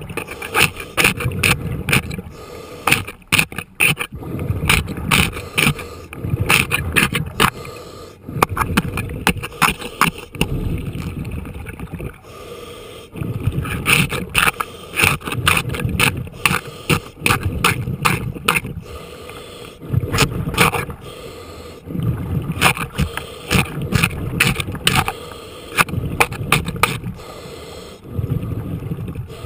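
Scuba diver breathing through a regulator underwater: exhaled bubbles rumble and crackle past the camera in bursts every few seconds.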